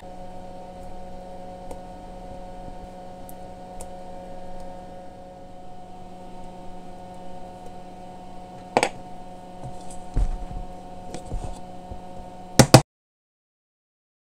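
A steady electrical or appliance hum with a few sharp knocks near the end, then the sound cuts off to silence.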